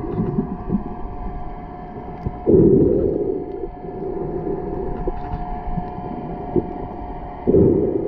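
Underwater sound through a submerged camera: a muffled low water rumble with a steady faint hum, and two louder low surges about five seconds apart.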